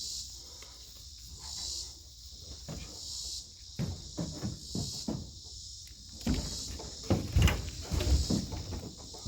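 A steady insect chorus, high-pitched and slightly pulsing, under a run of dull knocks and thumps that are loudest about seven to eight seconds in.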